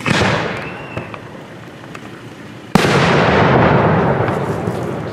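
Two aerial firework shells bursting: a bang right at the start, then a louder, sharper bang almost three seconds in. Each is followed by a long rolling rumble as it echoes away.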